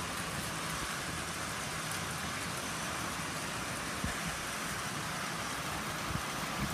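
Steady hiss of heavy rain falling during a thunderstorm downpour.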